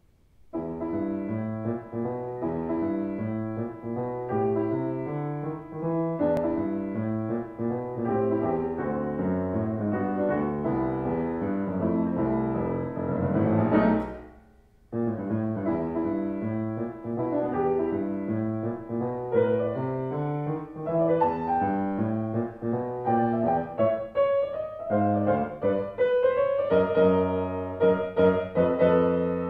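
Solo piano playing a quick swing piece in 5/4 with swung eighths: short right-hand figures over a steady quarter-note bass line. About halfway through, a rising run climbs to a loud accent and breaks off in a pause of about a second before the tune resumes.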